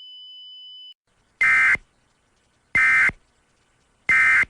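A steady high electronic tone that cuts off just before a second in, then three short, identical bursts of Emergency Alert System SAME data tones, evenly spaced: the End Of Message code that closes the alert.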